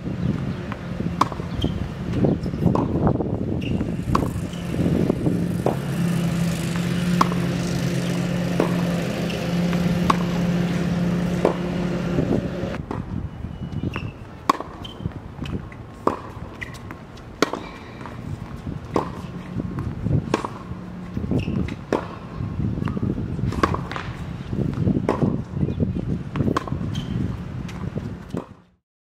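Tennis ball struck by racket in groundstroke rallies on a hard court: sharp pops every second or so, some with a softer bounce. For about the first half a steady low motor hum runs underneath and then stops abruptly.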